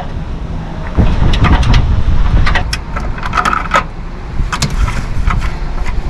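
Irregular metallic clicks and clinks of a wrench loosening the 13 mm bolt that holds the RV's old stock horn, with a brief squeak midway. A low wind rumble on the microphone runs underneath.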